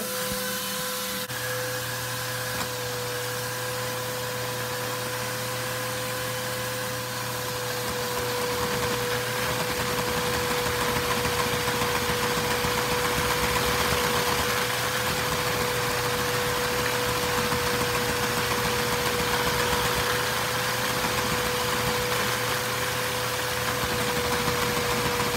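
Shared-crank-valve inline-four Lego vacuum engine running on suction from a vacuum cleaner: the cleaner's steady whine under a dense plastic clatter from the pistons, valves and gears. It grows louder about eight seconds in.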